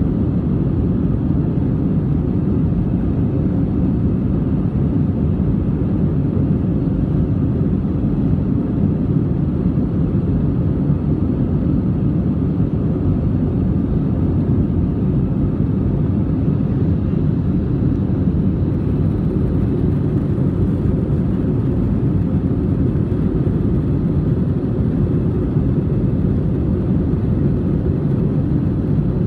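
Steady low roar of an Airbus A320's engines and rushing air, heard from inside the passenger cabin in flight.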